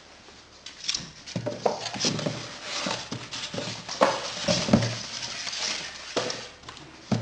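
Cardboard box flaps and polystyrene packing blocks being handled and lifted out: an irregular run of knocks, scrapes and rustles.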